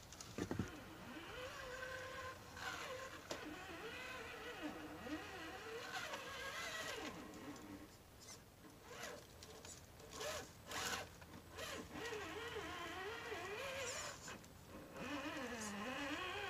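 Electric motor and gears of an Axial UMG10 RC rock crawler whining, the pitch rising and falling as the throttle changes, with sharp clicks and knocks scattered through the middle.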